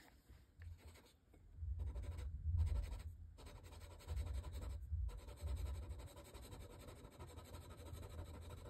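Faint sounds of ink being swatched onto paper, with low dull bumps of handling on the desk.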